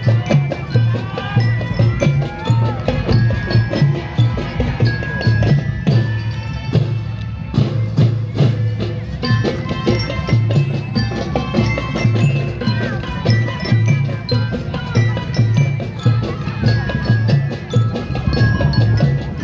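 A marching drum band playing: a melody on metal bells over a steady, regular bass drum beat and sharp snare strokes.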